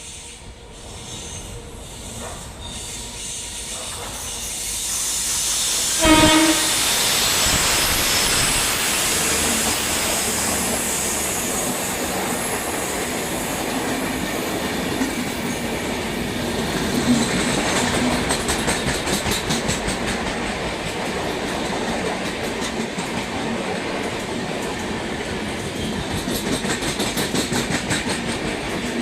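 Express train approaching at speed and passing close by, with a short horn blast about six seconds in as it arrives. After the horn comes a steady rush of the coaches going past, with wheel clatter growing rhythmic near the end.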